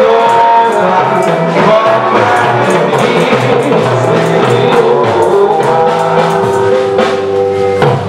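Church gospel music with singing and a drum kit playing a steady beat.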